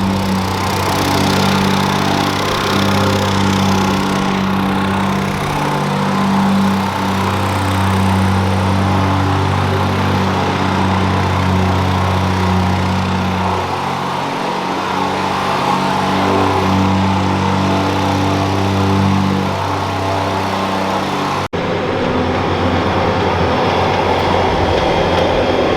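An engine running steadily at an even pitch, with a sudden brief break about three-quarters of the way through before it carries on.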